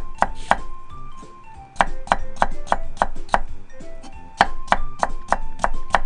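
Kitchen knife cutting carrot slices into thin matchsticks on a wooden cutting board: quick, even chops about three a second, in short runs with brief pauses.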